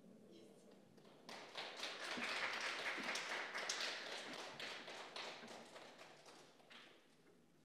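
Audience applauding once the song has ended. The clapping starts about a second in, builds and then fades away.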